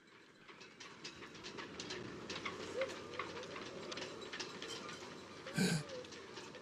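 City ambience at night: a steady low rumble with many faint clicks and rattles. A brief louder sound comes near the end.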